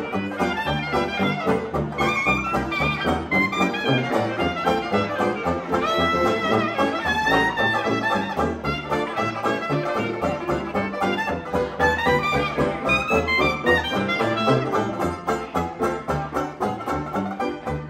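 Small hot jazz band playing live: a clarinet leads over a steady beat, and the clarinet drops out about three-quarters of the way through as the beat comes forward.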